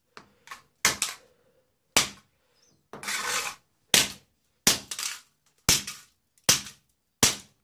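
Hammer blows on a 2.5-inch Hitachi hard drive lying on a tiled floor, about eight sharp metallic strikes roughly a second apart, with a longer rasping crunch about three seconds in.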